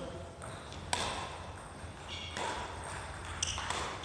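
A sharp badminton racket hit on a shuttlecock about a second in, then short shoe squeaks on the wooden gym floor.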